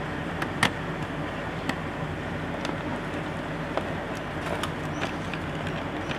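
Scattered small sharp clicks of laptop parts being handled and fitted during reassembly, over a steady background hum and hiss.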